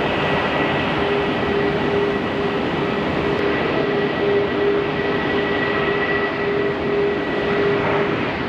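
Aircraft engines running steadily: a constant rushing noise with a steady hum and a fainter high whine held throughout.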